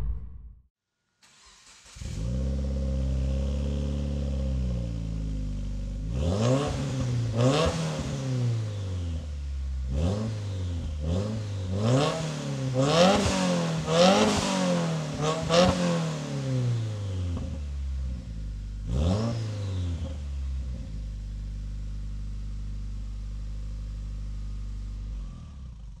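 2015-2021 Subaru WRX's turbocharged 2.0-litre flat-four heard through a COBB titanium cat-back exhaust. It idles steadily, then gives a series of quick revs that rise and fall, one more rev a few seconds later, and settles back to idle before fading out near the end.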